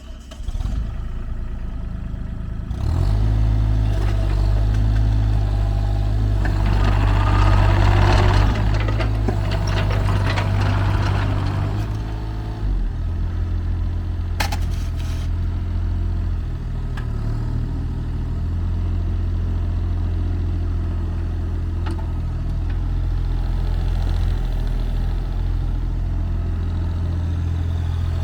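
JCB 8025 ZTS mini excavator's diesel engine running, coming up just under a second in and rising in speed at about three seconds. From about six to twelve seconds a whine rising and falling in pitch with rattling rides over it as the hydraulics work, after which the engine settles to a steady run with a few sharp clicks.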